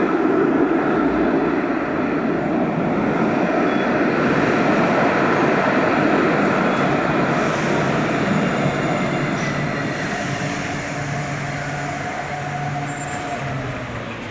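A tram pulling into an underground station: a loud, steady rolling rumble that slowly fades as it slows. Low steady hums come in over the last few seconds as it comes to a stop at the platform.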